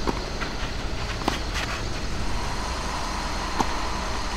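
Tennis rally: sharp pops of a racket hitting the ball, three clear ones a second or two apart with fainter knocks between, over a steady low background rumble.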